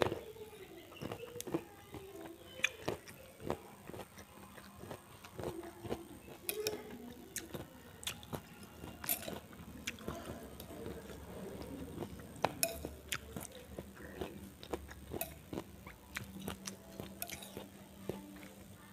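Eating soup close to a lapel microphone: a metal spoon clicking and scraping against a ceramic bowl, with chewing between spoonfuls. The clicks come irregularly, several every few seconds.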